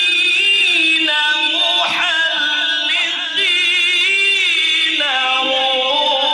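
A man's voice chanting a slow, ornamented melody in the style of a qari's Quranic or devotional recitation, holding long notes with wavering turns and pausing for breath about three seconds in.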